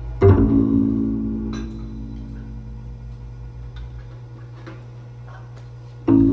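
A struck instrument note rings out and fades over about two seconds, and a second one is struck near the end, over a low steady hum that dies away.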